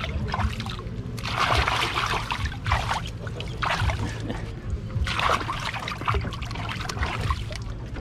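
A hand scooping and splashing water in a shallow pool, in several separate splashes about a second apart.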